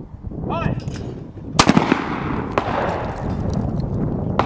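A .410 Thompson Contender single-shot pistol fired once at a clay target, a sharp loud shot about a second and a half in with a long echo trailing after it, just after a short shouted call. Another sharp crack comes near the end.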